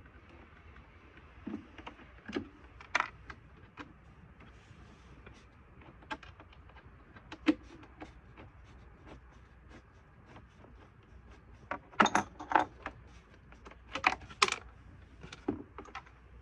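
Scattered small metal clicks and clinks of screws and a screwdriver as the screws holding a truck's glove compartment are taken out, with a denser run of clinks about twelve seconds in and again near the end.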